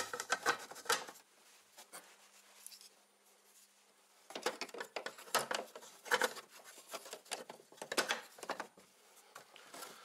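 Hard plastic parts of a cyclone dust pre-separator being handled and fitted together: clicks, knocks and rubbing. The sounds come in two bursts, a short one in the first second and a longer, busier one from about four to nine seconds in.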